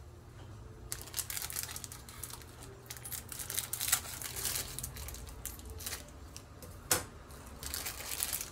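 Plastic wrapping of fresh yakisoba noodle packs crinkling as it is handled and cut open with kitchen scissors, starting about a second in, with one sharp click near the end.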